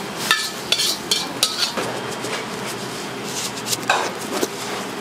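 Metal cookware and utensils clanking in a commercial kitchen: a quick run of sharp metal clinks and knocks over the first two seconds, then a short hiss about four seconds in.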